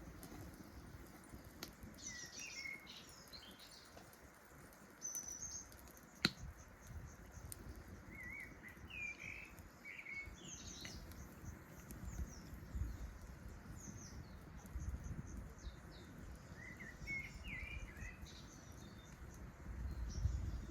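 Small birds chirping in short, quick phrases several times, over a steady low rumble, with one sharp click about six seconds in.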